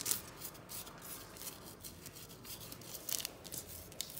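Fingers rubbing and pressing coloured sand onto the sticky paper of a sand-art picture: faint, scratchy rustles on paper in short strokes, with a few sharper scrapes.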